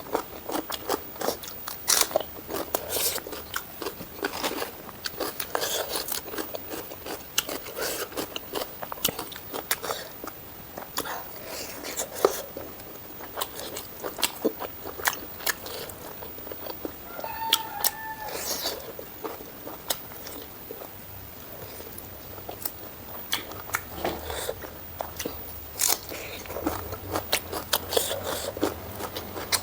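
Close-miked eating: a person chewing mutton curry and rice with raw salad, with frequent crunching bites, wet chewing and mouth clicks at an uneven pace. A short pitched sound comes about halfway through.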